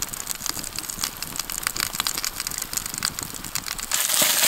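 Scattered sharp crackles and ticks from a campfire and its foil-wrapped food. About four seconds in, a louder, steady sizzle starts: potatoes and sausages frying in a pot over the coals.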